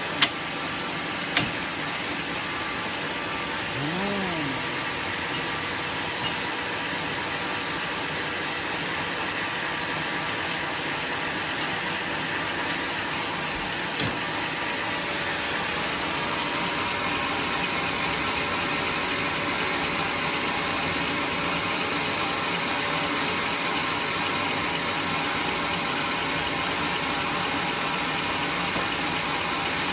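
Machinery running steadily, an even, hiss-like noise, with two sharp knocks in the first second and a half and another about fourteen seconds in.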